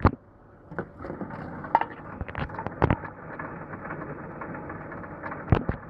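Reverse vending machine taking in a plastic soft-drink bottle: a sharp knock as it goes into the hole, then from about a second in the conveyor belts run with a steady mechanical noise, with knocks and rattles of the bottle as it is carried through.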